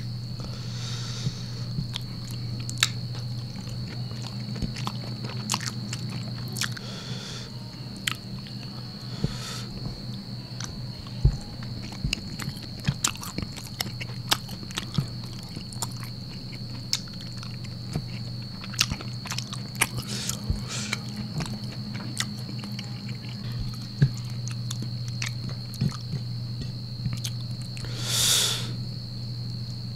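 Close-up chewing and mouth sounds of a person eating rice with rendang and squid by hand: many small wet clicks and smacks, over a steady low hum and a faint high whine, with a short hiss about two seconds before the end.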